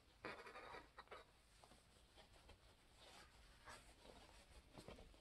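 Faint rustling and brushing of fabric being handled, in a few short spells, the first and loudest about a quarter second in.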